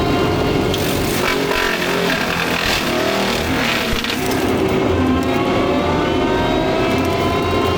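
Takeuchi track loader running a Fecon forestry mulcher head at high speed. For a few seconds in the middle the pitch sags and there is a clatter as the rotor bites into brush, then the whine climbs back up as it spins free.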